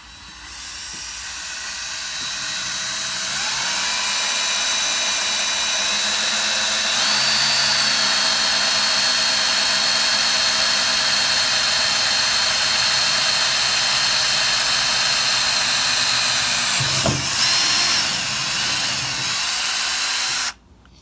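DeWalt cordless right-angle drill running continuously as it bores a pilot hole through a car's sheet-metal trunk lid. Its whine builds over the first couple of seconds, steps up in pitch a couple of times, and cuts off suddenly near the end.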